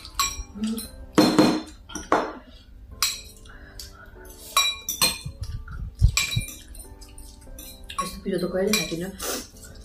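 Metal forks clinking and scraping against ceramic bowls as noodles are eaten, in a string of short, sharp clinks, some with a brief ring, over faint background music.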